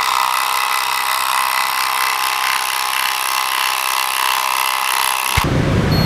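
Milwaukee M12 FUEL impact driver hammering steadily under load as it drives a long screw into a wooden block. It cuts off suddenly near the end, giving way to a low rumble.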